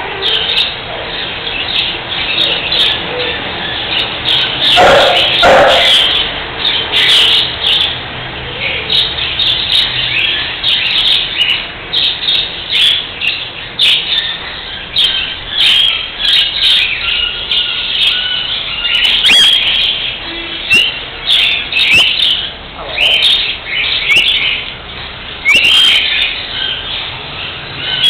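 Cockatiel chirping over and over, with many short, high calls following one another.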